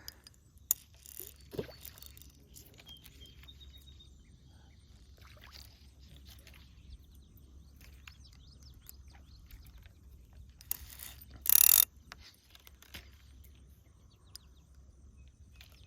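Quiet outdoor background with a steady low rumble and scattered small clicks and rustles, broken by a loud hissing noise burst lasting about a second, roughly eleven seconds in.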